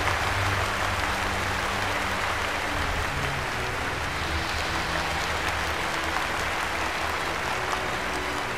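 Large crowd applauding steadily, with low sustained music tones underneath.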